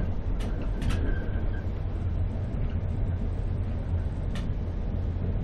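Steady low rumble of a Z2ABCMg-FPS passenger coach running on the rails, heard from inside a first-class compartment, with a few sharp clicks from the wheels over the track, three in all.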